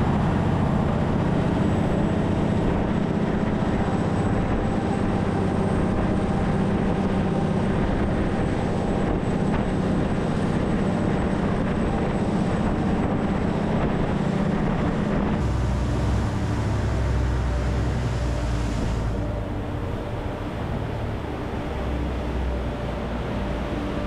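Canal passenger boat's engine running hard under way, with water rushing and spraying along the hull. About two-thirds of the way through, the engine sound changes to a lower, deeper note and eases slightly, as the boat slows.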